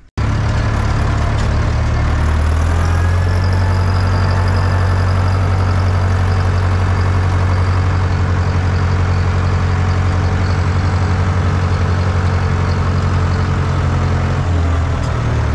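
IHC 844-S tractor's diesel engine running steadily at an even speed, its note dropping slightly near the end.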